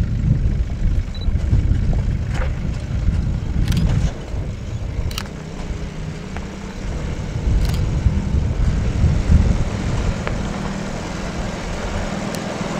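Four-wheel drive coming down a steep, rocky dirt track, its engine running low under a heavy, uneven rumble, with a few sharp clicks scattered through.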